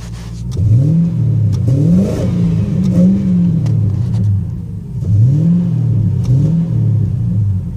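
Ford 4.6-litre V8 with a dual exhaust through a glass pack and MagFlow mufflers, revved in quick throttle blips from idle. The pitch rises and falls back each time, in two groups with a brief return to idle about halfway.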